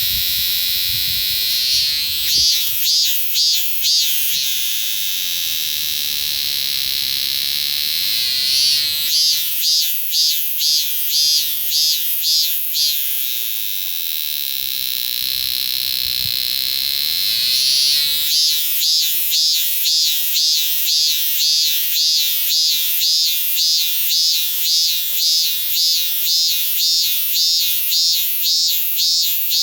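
A minmin cicada (robust cicada, Hyalessa maculaticollis) singing in three bouts. Each opens with a rising buzz that breaks into a rhythmic 'meen-meen' pulsing, about two pulses a second, over a steady high hiss. The last bout starts about 18 seconds in and runs the longest.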